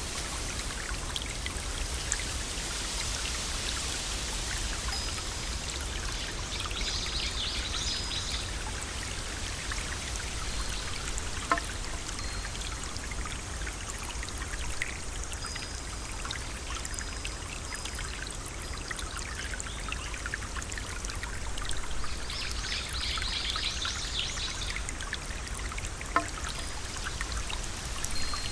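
Waterfall: water pouring and splashing steadily, with a couple of sharp clicks partway through and a few brief high-pitched chirps.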